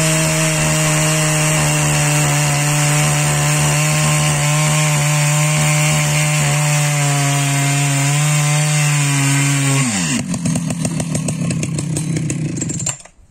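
Large Husqvarna two-stroke chainsaw at full throttle cutting through a beech log, a steady high engine note under load. About ten seconds in the throttle is released and the pitch drops away to a rapid, even idle, and the sound cuts off near the end.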